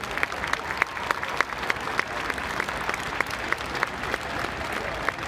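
A stadium crowd applauding, with one person's claps close by standing out about three times a second over the steady wash of the crowd's clapping.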